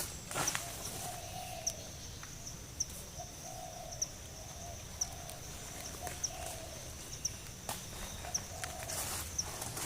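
A forest bird repeating a short, low hooting note about once a second, over a steady high insect drone with a regular tick in it. There are a few brief knocks, one of them near the start.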